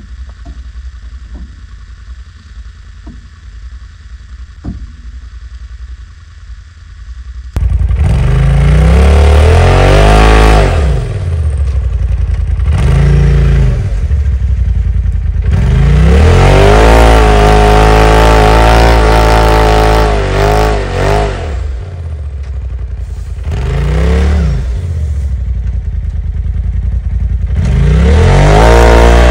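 Polaris RZR Pro side-by-side UTV revving hard in repeated bursts, its engine pitch climbing and dropping each time, as it spins in deep snow trying to climb out of a ditch where it is stuck. Before the revving, which starts abruptly about seven seconds in, there is a quieter low hum with a few faint clicks.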